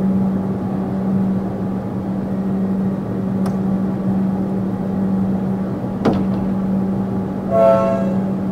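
Siemens electric suburban train standing at the platform, its equipment giving a steady low hum. A sharp click comes about six seconds in, and a short electronic beep near the end.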